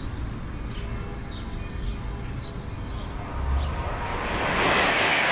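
Birds chirping over a low rumble, then a high-speed train passing: a rush of noise swells from about three and a half seconds in and is loudest near the end.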